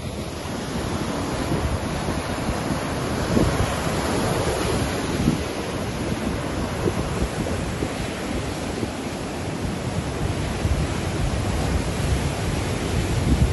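Stormy surf breaking and washing up the beach in a steady rushing wash, with gusts of strong wind buffeting the microphone in uneven low rumbles.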